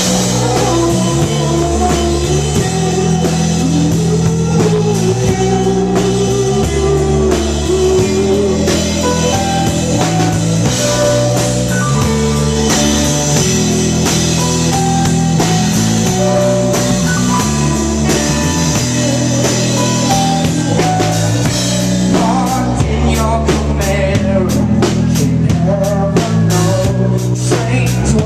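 Live rock band playing a song with drum kit, guitar and bass. The drums and cymbals get busier about 22 seconds in.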